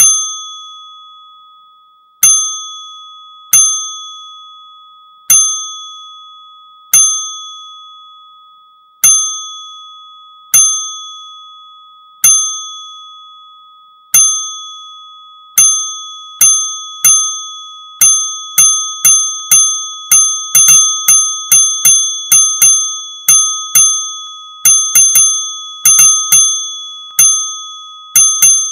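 A bright single-stroke bell ding sound effect, repeated again and again with each ding fading away. The dings come about every one and a half to two seconds at first, then quicken to several a second in the second half.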